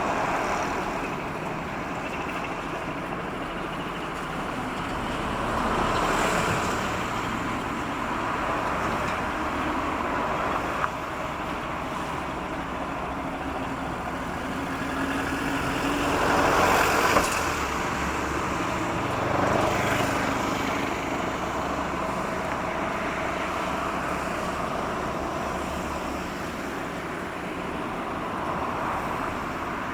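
Road traffic passing close by, with cars and trucks going past one after another over a steady rumble; the loudest pass comes a little past halfway.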